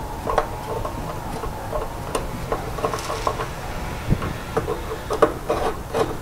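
Hand screwdriver driving the screws of a round metal junction-box cover: a run of small, uneven metal clicks and taps, busiest near the end, over a steady low background rumble.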